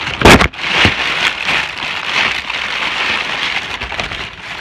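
Crinkling and rustling of shoe-box packaging being handled, a dense crackle throughout, with one loud, sharp knock about a third of a second in.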